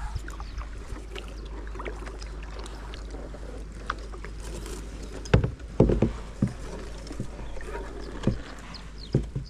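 Kayak paddling: paddle blades dipping and splashing in the water with small drips and ticks, and a few louder knocks around the middle and again near the end.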